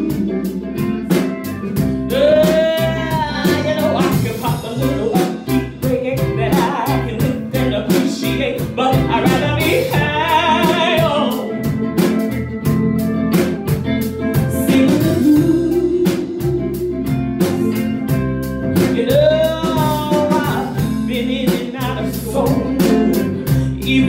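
Blues band playing live, with a woman singing through a handheld microphone in long, sliding vocal runs over a steady beat.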